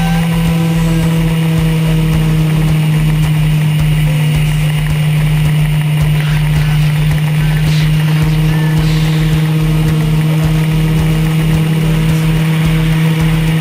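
Motorcycle engine running at a steady cruise, holding one constant pitch, with wind and road noise on a bike-mounted camera.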